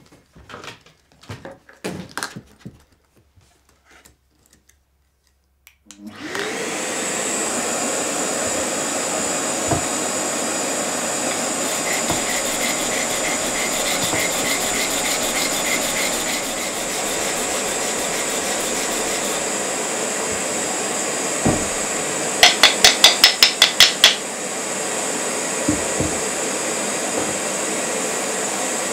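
Light handling clicks and knocks, then about six seconds in a vacuum cleaner switches on and runs steadily with a high whine, drawing air through a perforated dust-collection sanding table. Over it a sanding block is rubbed back and forth by hand in a regular rhythm, and about two-thirds of the way through comes a quick run of about nine sharp taps.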